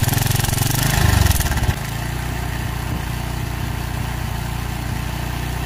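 TVS Victor single-cylinder motorcycle engine idling with a rattle from a slack timing chain and worn tensioner; about a second and a half in the noise drops to a quieter, steadier idle as the tensioner is pressed tight.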